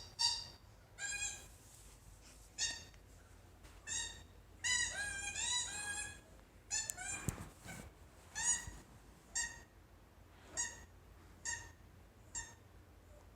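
Squeaky toy ball squeaking over and over as a German Shepherd puppy chews on it, roughly once a second, with a quicker run of squeaks about five seconds in. Two sharp clicks come at about seven seconds.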